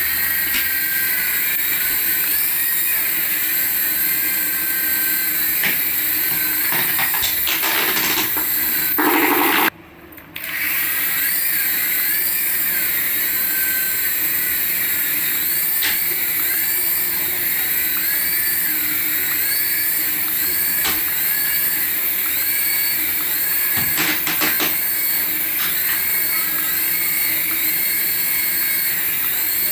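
Small electric motor of a battery toy whining steadily, its high pitch wavering up and down in a regular cycle about once a second, with a brief break about ten seconds in.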